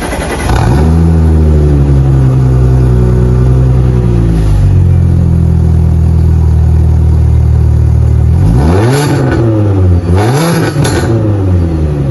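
Audi S4 engine running through a valved aftermarket exhaust with the valves closed: a raised idle that settles lower about four seconds in, then two quick revs that rise and fall.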